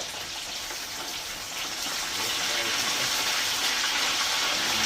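Fish frying in hot oil: a steady sizzle that grows louder about two seconds in.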